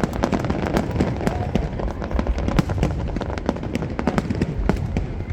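Aerial fireworks going off in rapid succession: a dense run of sharp cracks and pops over a constant low rumble.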